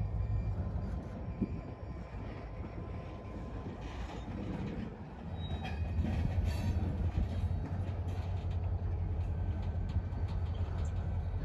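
Freight train passing: covered hopper cars and a tank car rolling on the rails behind a diesel locomotive. It is a steady low rumble, louder from about halfway through, with scattered wheel clicks.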